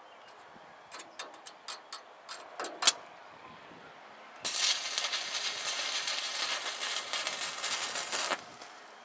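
A series of sharp clicks and taps over about two seconds, then an electric welding arc crackling steadily for about four seconds before cutting off suddenly.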